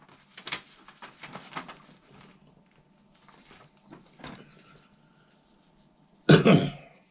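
Paper rustling as a letter is picked up and unfolded, then one short, loud cough from a man about six seconds in.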